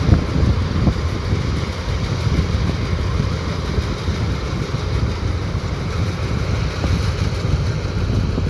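Rice combine harvester's diesel engine and machinery running steadily, a dense low rumble.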